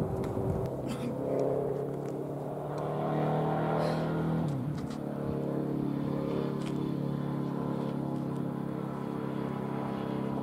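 London Midland Class 350 Desiro electric multiple units approaching, their electric traction drives giving a steady whine of several held tones. About four and a half seconds in, one tone drops in pitch.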